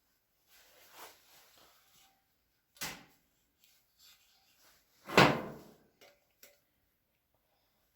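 Metal handling sounds as a new retaining clip is fitted onto the Coleman camp stove's fuel pump: soft rustling, a sharp click about three seconds in, a louder clunk about five seconds in, then a couple of small clicks.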